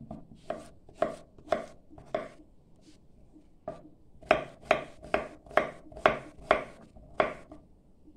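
Kitchen knife chopping native squash (calabacita criolla) on a wooden cutting board: sharp chops about two a second, a pause of about a second and a half, then a quicker run of about nine chops that stops near the end.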